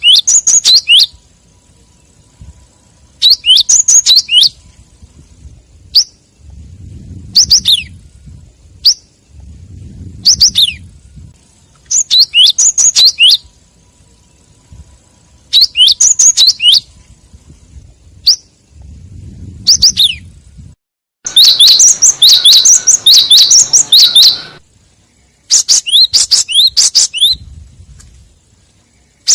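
Cinereous tit (gelatik wingko) calls played as a trapping lure: loud phrases of fast, high chirps about a second long, repeating every two to three seconds, with one longer, denser run of chirps lasting about three seconds about two-thirds of the way through.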